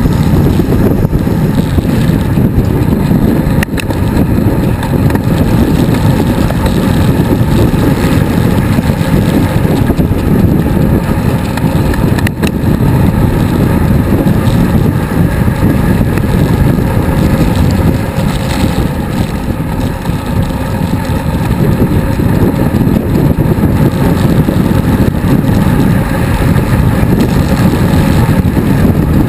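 Heavy wind buffeting on the microphone of a bicycle-mounted action camera on a fast road-bike descent, a loud steady rushing, with a couple of brief clicks.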